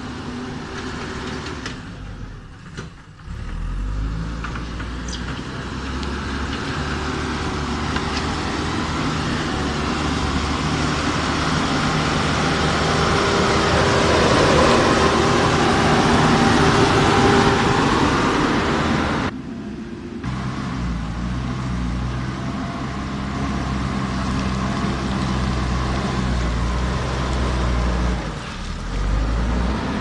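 JCB backhoe loader's diesel engine running under load as its front bucket pushes and spreads gravel, with a hiss of scraping stones over the engine. It grows louder toward the middle and breaks off abruptly twice, about two seconds in and again just before halfway.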